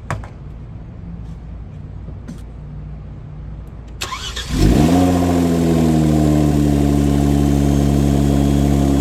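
Kia Stinger's 3.3-litre twin-turbo V6, fitted with an aftermarket twin-turbo kit, started about four seconds in: it catches, briefly rises in pitch, and settles into a steady idle.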